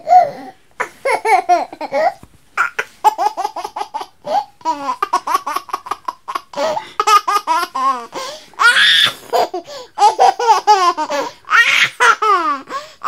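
A baby laughing in a run of short, high-pitched bursts, broken by bits of babbling.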